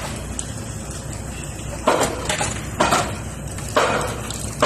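Four sharp metal clanks, roughly one a second, each ringing briefly, over a steady low rumble.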